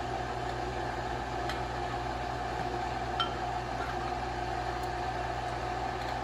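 Steady mechanical hum of a running kitchen appliance, with a couple of faint light clicks as metal canning lids are handled.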